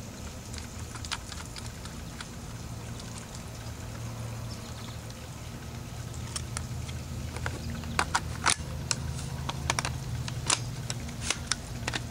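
Hands handling a plastic M4-style airsoft rifle: a run of sharp, irregular clicks and knocks in the second half, over a steady low motor hum in the background.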